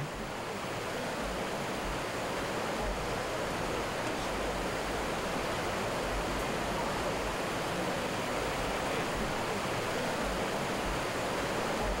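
Mountain stream water rushing in shallow cascades over broad, smooth rock slabs: a steady, even rush.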